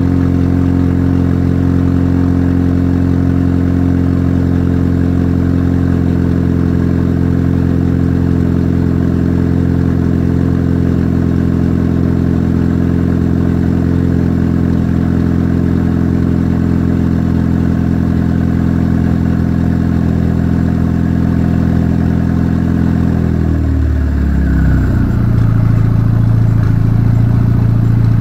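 Saturn Sky Redline's 2.0-litre turbocharged four-cylinder idling steadily at its raised cold-idle speed, loud through a muffler-less Solo race cat-back exhaust and catless downpipe. About 24 seconds in, the idle speed drops as the engine settles to warm idle, and the note is a little louder after.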